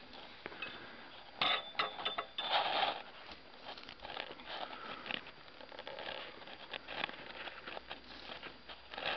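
Cut strips of lawn sod being peeled up and rolled by hand: irregular scraping and tearing of roots and soil, with scattered clicks and a louder burst of knocking and scraping between about one and a half and three seconds in.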